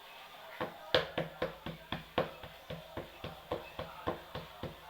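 Knife chopping on a cutting board: a steady run of sharp knocks, about four a second. The loudest comes about a second in.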